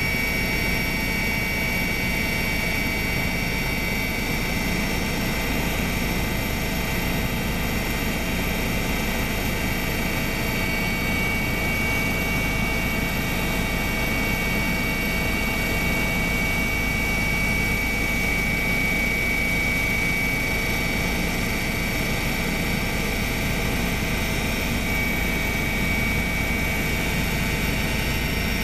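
Helicopter in flight heard from aboard: a steady engine and rotor drone with a high, steady whine on top.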